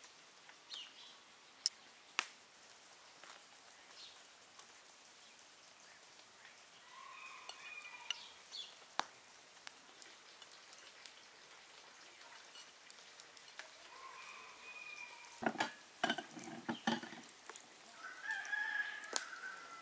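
Chickens calling, with a rooster crowing, three spells of calls in all and the clearest near the end. Sharp clicks are scattered throughout, and a quick run of knocks and thumps about three quarters through is the loudest sound.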